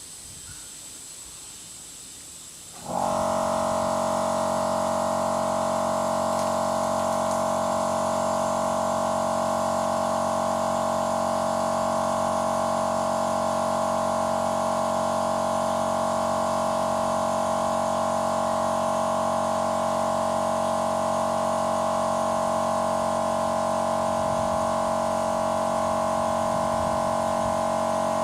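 Compressed air hissing steadily into a car tyre. About three seconds in, the workshop air compressor kicks in and runs with a loud, steady, even hum for the rest of the time as it tops up the air it is supplying to the tyre.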